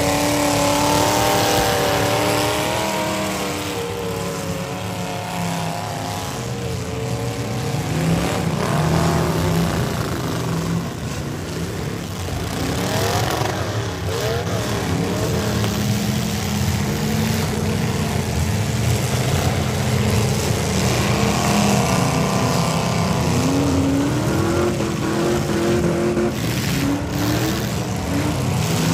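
Several V8 demolition derby car engines running and revving together, their pitch rising and falling as the cars accelerate and back off, with a few knocks of cars hitting each other near the end.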